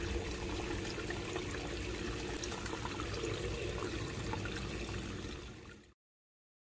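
Water trickling steadily into a yard catch basin through its drain grate, the line draining freely and not backed up. It fades out near the end.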